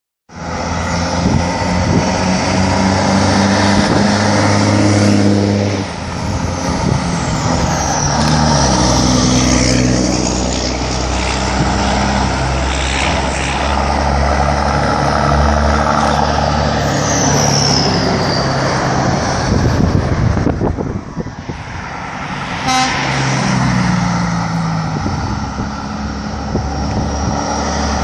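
Heavy trucks' diesel engines running as a convoy pulls off, with long horn toots. The recording is poor and harsh.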